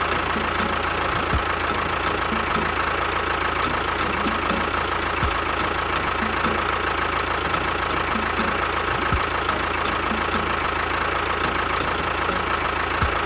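A motor running steadily at one speed, with a constant whine and no change in pace.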